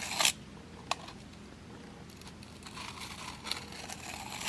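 Faint scraping of a steel broadhead blade's flat backside drawn across a 400-grit diamond sharpening plate to break off the burr, with a short rasp at the start and a sharp click about a second in.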